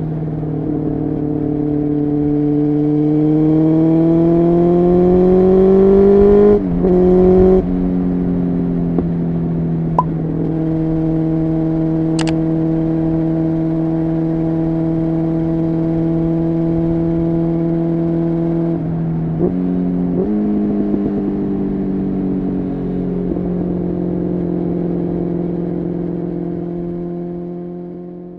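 Honda CBR600F3's inline-four engine under way, its pitch rising steadily as it accelerates for the first several seconds, with quick breaks in the note at gear changes. It then holds a steady cruising note, changes again about two-thirds through, and fades away near the end.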